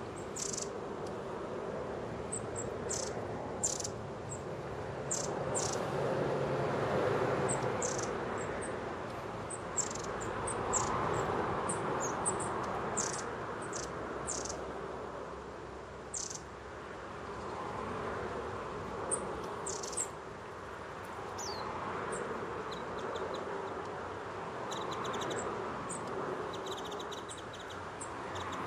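A flock of long-tailed tits calling: short, very high, thin notes, single or in quick little series, scattered throughout. Under them runs a steady rushing background noise that swells and fades every few seconds.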